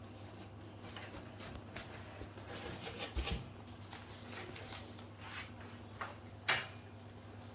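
Faint rustling and light scrapes and clicks of the hose and plastic parts of a cordless power cleaner being unpacked and handled, with a dull knock about three seconds in, over a low steady hum.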